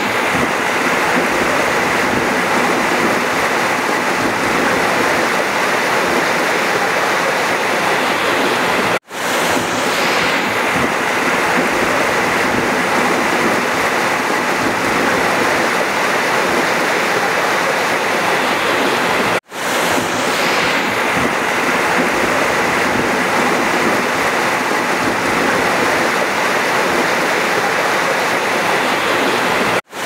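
River water rushing, a steady full hiss of flowing water. It cuts out for an instant and fades back in three times, about ten seconds apart.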